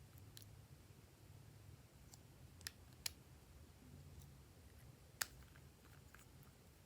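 Faint sticky clicks and small pops of glossy slime being handled and mixed, over a low steady hum. A few sharper clicks stand out, the loudest about three quarters of the way through.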